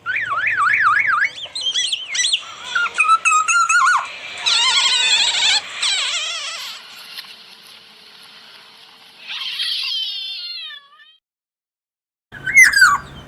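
Black-naped oriole calling: a run of wavering, siren-like whistles and warbles, densest in the middle, tailing off in a falling, fading call, then after a short pause one loud falling call near the end.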